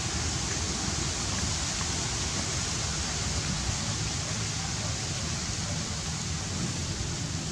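Steady outdoor background noise: an even hiss with a low rumble underneath, and no distinct calls or knocks.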